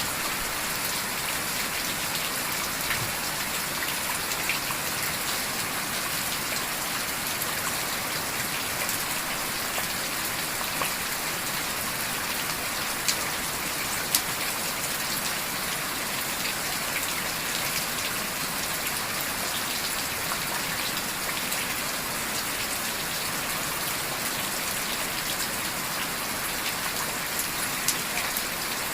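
Steady heavy rain falling, a constant hiss with a few sharp clicks now and then, the loudest about halfway through and near the end.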